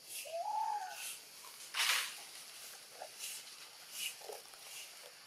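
Baby macaque giving one arched coo call near the start, rising and then falling in pitch, a hungry infant's call for milk. About two seconds in comes a short, loud noisy burst.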